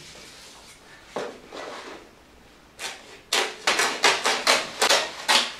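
Scissors cutting along a sheet of radiator reflector foil: a rapid run of crisp snips, about five a second, starting a little past halfway, after a few softer single sounds earlier.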